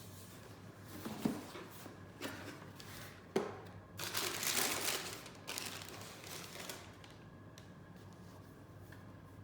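Shoe-box packaging being handled and opened: paper rustling and crinkling in several bursts, with a sharp click about three and a half seconds in and the longest, loudest rustle around four to five seconds in.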